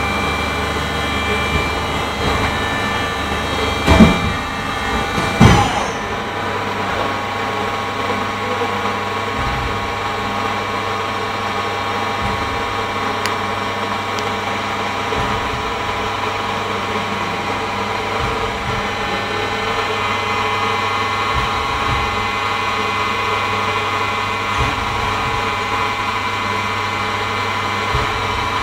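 Machinery running with a steady hum and several steady tones, broken by two loud knocks about four and five and a half seconds in.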